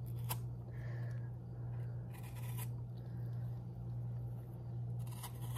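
A kitchen knife shaving the peel off an apple: a few short scraping strokes over a steady low hum.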